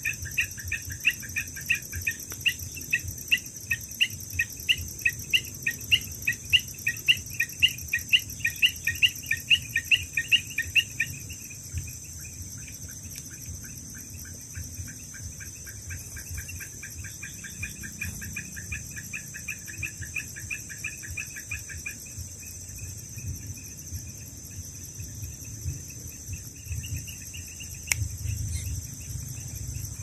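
Insects calling: a steady high-pitched buzz throughout, over a rhythmic chirping of about three chirps a second. The chirping is loud for the first ten seconds or so, then fainter, and fades out with a brief return near the end.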